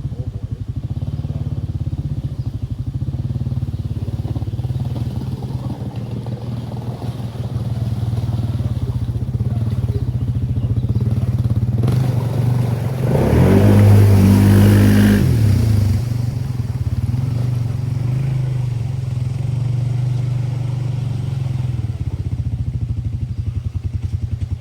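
Can-Am Outlander 700 XMR ATV engine running under way, revving up sharply for about three seconds about halfway through, with a rush of noise, before easing back to a steady run.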